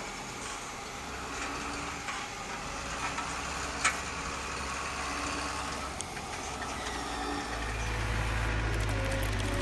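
Pellets pouring from a model silo chute into a plastic toy trailer: a steady hiss over a low hum, with one sharp click about four seconds in. A louder low drone comes in near the end.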